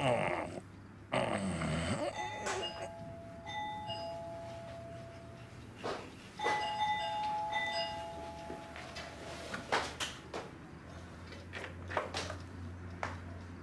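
A doorbell chime rings twice, about four seconds apart; each ring is a two-note ding-dong with the lower note entering just after the higher one and both held for a couple of seconds. Before the first ring, the dog asleep on the bed gives a loud snore lasting a second or two.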